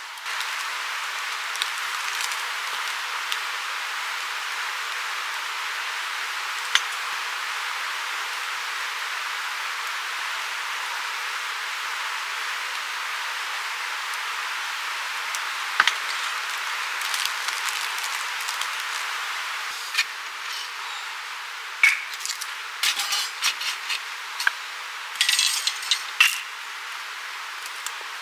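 Steady outdoor hiss with a few sharp cracks and clicks scattered through it, then a run of light knocks and clicks in the last third.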